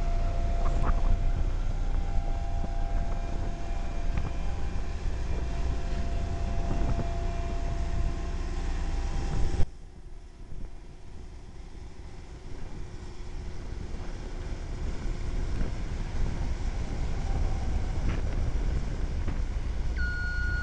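Cat CS433E smooth drum roller's diesel engine running steadily as the machine works over dirt subgrade. About ten seconds in the sound drops suddenly and stays quieter for a few seconds before building back up. Near the end a reversing alarm starts beeping.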